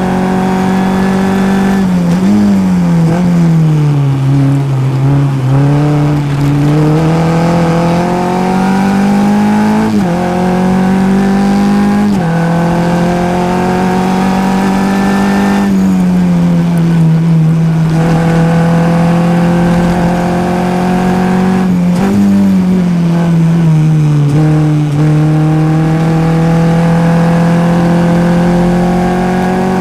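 Formula F race car's engine heard from the cockpit at racing speed: it holds high revs, then twice drops sharply with short throttle blips as the driver brakes and downshifts for a corner. Each time it then climbs back up through the gears, the revs rising in sweeps that fall abruptly at each upshift.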